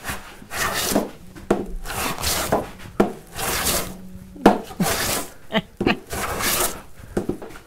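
Hand smoothing plane shaving a thin veneer board in a run of strokes about one a second, each a short rasping hiss of the iron cutting wood.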